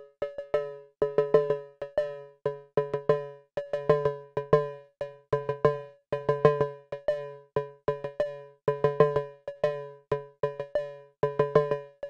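Mode Machines ADX-1 analog drum machine playing a looping pattern: short pitched hits in a fast repeating rhythm, with a low note joining under them right at the beginning.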